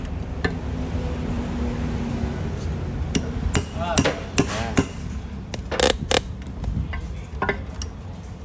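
Hammer tapping on a car air-conditioning compressor's clutch hub held in a vise, a string of irregular sharp metallic knocks, the two loudest close together about six seconds in. The tapping loosens the hub bolt before it is undone with a wrench.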